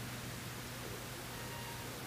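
Steady faint hiss with a low hum and no other sound: the recording's background noise between narration lines.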